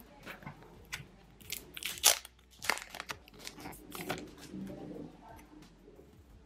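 Crinkling and crackling of a paper photo-card packet handled by hand: several sharp crackles in the middle, loudest about two seconds in, then softer rustling as the photo cards are slid out and fanned.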